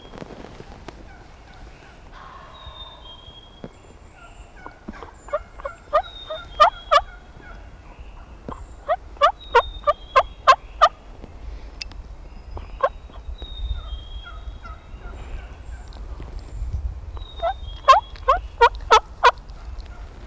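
Hen turkey yelps sounded on a turkey call as soft tree yelps to roosted birds: three series of about six evenly spaced yelps, roughly three a second, with faint songbird chirps between them.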